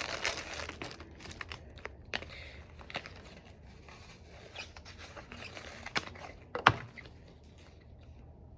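Rustling and crinkling handling noise as a stretchy wig cap is pulled on over sprayed-down hair, with scattered light clicks and taps and one sharper click about two-thirds of the way through.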